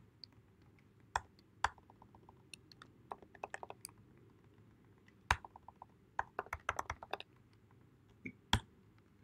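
Typing on a computer keyboard: scattered keystrokes with two quick runs of keys, and a few sharper single strikes standing out among them.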